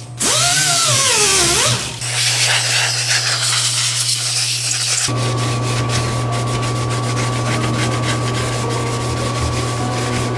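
A die grinder whining, its pitch rising and falling as it grinds the plastic inside a headlight housing. About five seconds in this gives way to a Scotch-Brite pad scrubbing rapidly over a chrome headlight reflector, stripping the chrome.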